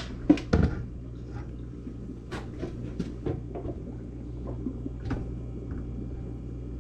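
Sharp knocks and clicks: two loud ones about half a second in, then scattered lighter clicks, over a steady low hum.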